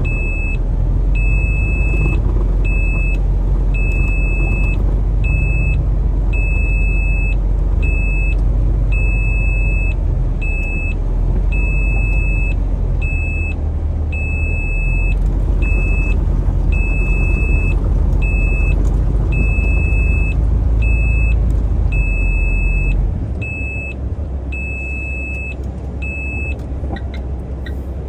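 Truck engine running with a deep rumble, under an electronic warning beep that sounds about once a second. The rumble drops noticeably about 23 seconds in, and the beeping stops a few seconds later.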